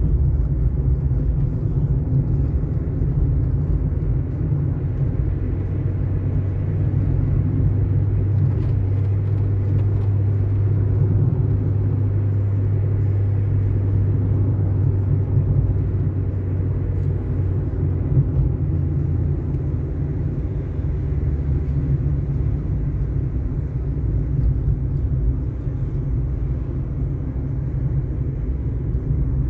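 Steady low road noise of a car driving on an asphalt road, tyre and engine sound mixed together, with a low hum that swells for several seconds in the middle.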